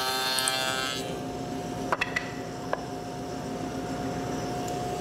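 Spindle shaper with a bearing-guided profile cutter. In the first second it is cutting the edge profile on a wooden door rail, then the cut ends and the shaper runs on free with a steady hum. A few light knocks follow as the piece is handled.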